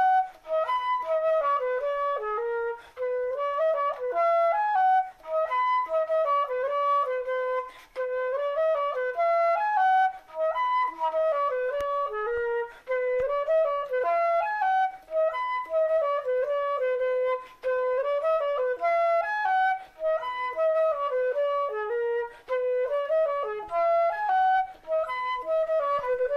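Music: a single melody line of stepped, held notes in short repeating phrases, about one every two and a half seconds, with a brief gap between phrases.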